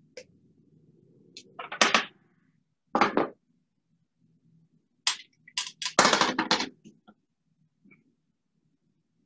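Several short bursts of knocking and clattering close to the microphone: one a little under two seconds in, another at about three seconds, and a cluster between five and seven seconds. They sound like objects being handled and set down.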